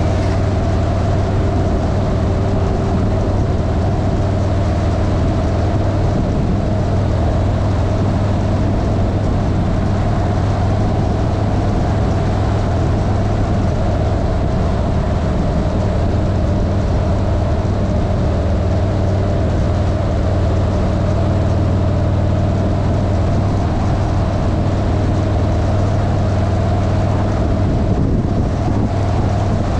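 Vehicle engine running at a steady cruising speed, its note holding level throughout, under a constant rush of wind and tyre noise.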